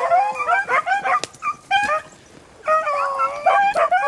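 A pack of beagles baying while running a rabbit, several hounds giving voice at once in overlapping, wavering cries, with a brief lull about two seconds in before they open up again.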